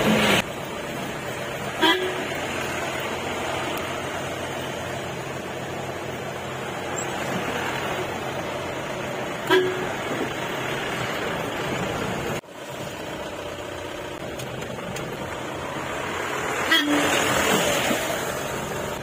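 Off-road jeep running steadily over a trail, with short horn toots about two seconds in, near the middle, and again near the end.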